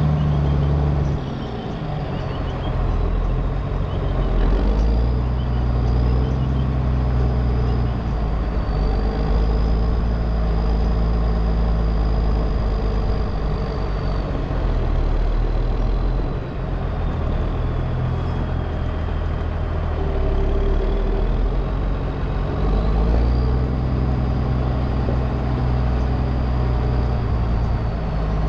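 Cat 140H motor grader's diesel engine running under load, its note rising and falling a few times as the load changes. A thin high whine drifts up and down in pitch above it.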